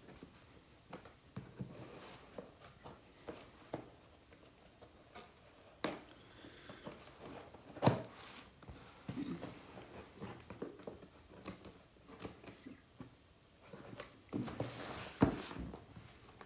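Handling of a cardboard shipping box: scattered light taps and scrapes, with sharp clicks about six and eight seconds in and a short rustle with a click near the end.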